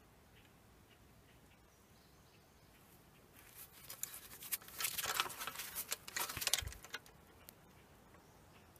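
Crackly rustling and scraping of soil and dry debris being shifted by a gloved hand, lasting about three and a half seconds from a few seconds in.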